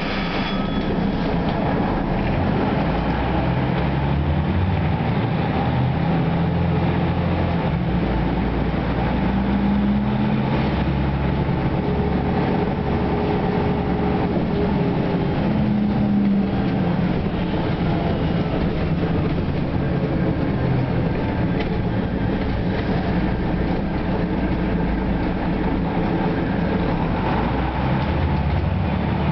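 Ikarus 260 city bus's diesel engine and running noise heard from inside the passenger cabin as the bus drives along. The engine note rises and drops a few times as it pulls away and changes speed.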